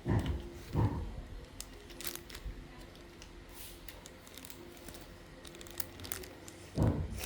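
Rustling, crinkling handling noises with scattered light clicks and a few soft thumps: hands working modelling clay and tools on a table.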